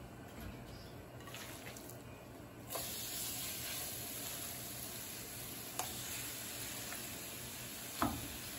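Strips of flour-and-egg-coated beef frying in a little hot sesame oil in a nonstick pan: a steady sizzle sets in suddenly about a third of the way in as the meat hits the oil, with a couple of short knocks as more meat is dropped in.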